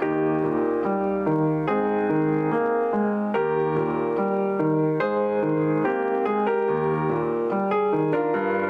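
John Broadwood & Sons 6 ft 8 in barless grand piano being played: a melody over steady chords, with a new bass note every second or so.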